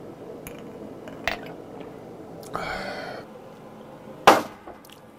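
A tequila slammer: a shot glass of tequila topped with tonic water, covered with a tissue, slammed down hard on the tabletop, a single sharp bang near the end that is the loudest sound. Before it come a light knock of glass on the table and a brief hiss.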